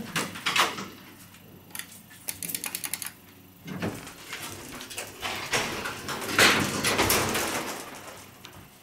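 Schindler elevator doors working at a floor stop: a quick run of rattling clicks about two seconds in, then the sliding rush of the doors, loudest about six to seven seconds in.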